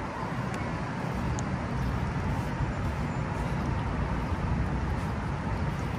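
Inline skate wheels rolling over asphalt: a steady, even rumble.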